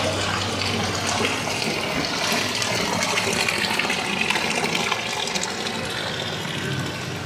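Water pouring from a stone fountain's lion-head spout and splashing into its basin: a steady rush that grows slightly quieter toward the end.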